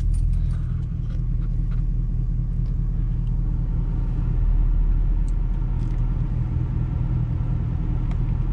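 Emissions-deleted 6.7 L Power Stroke V8 turbodiesel of a 2012 Ford F250 idling steadily just after a fresh oil change, left running to build oil pressure.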